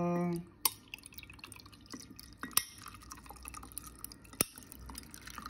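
Coffee poured from a glass Chemex carafe over a large ice ball in a glass: a faint trickle of liquid with sharp cracks and ticks from the ice, the loudest about half a second, two and a half, and four and a half seconds in.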